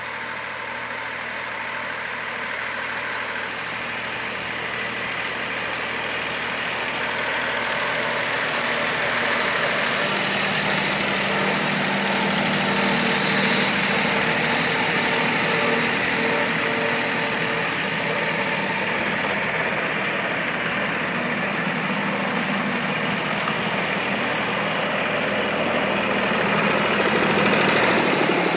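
Massey Ferguson 135 tractor engine running steadily under load while driving a Fahr KM22 mower cutting hay, growing steadily louder as it comes closer.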